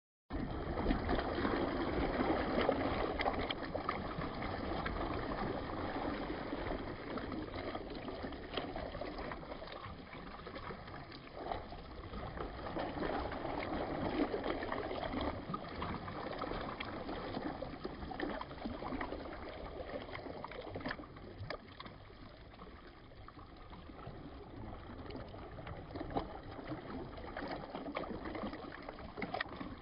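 Mountain reservoir water gurgling and splashing: a continuous rush with many small splashes scattered through it.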